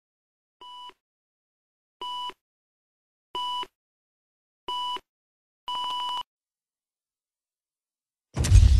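Film-leader countdown beeps: five short, steady, single-pitched beeps about a second and a third apart, the last one longer. Near the end a sudden loud crash with a deep rumble comes in.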